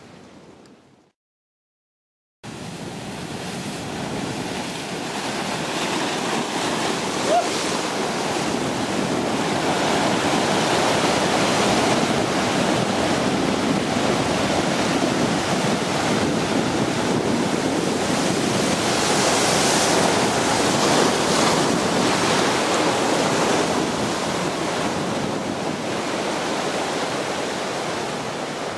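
Ocean surf breaking and washing over black lava rocks: a steady rush of white water that swells louder about a third of the way in and again about two-thirds in. It starts after a brief dead silence near the start.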